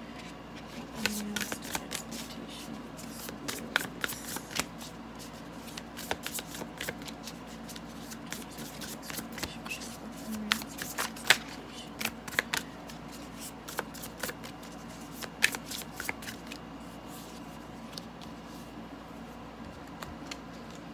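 A deck of tarot cards being shuffled in the hands, the cards flicking and snapping against each other in quick, irregular clicks.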